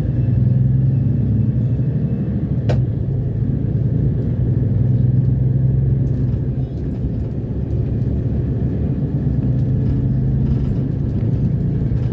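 City bus engine and drivetrain running steadily under way, a continuous low rumble heard from inside the passenger cabin. A single sharp click sounds about two and a half seconds in.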